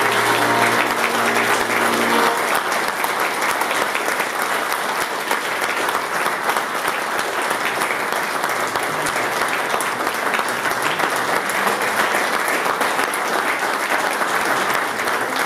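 Audience applauding steadily. An accordion's held closing chord sounds under the applause and stops about two seconds in.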